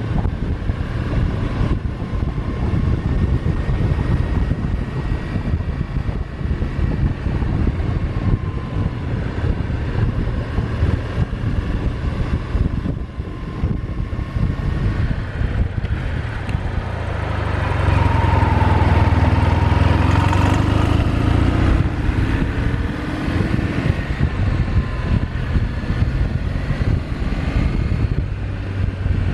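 Kawasaki W800 parallel-twin motorcycle running on the road, engine and wind noise steady. About two-thirds of the way through it grows louder and rises in pitch.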